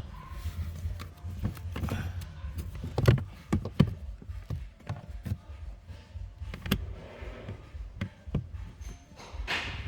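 Irregular clicks and knocks of car parts being handled and fitted back together, over a steady low hum.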